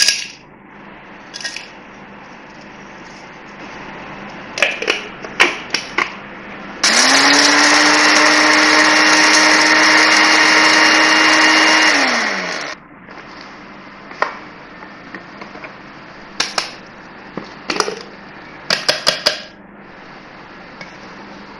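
Electric spice chopper grinding whole dry spices to powder: its motor spins up about seven seconds in, runs steadily for about five seconds with a whine, then winds down. Sharp clicks and knocks come before and after the run.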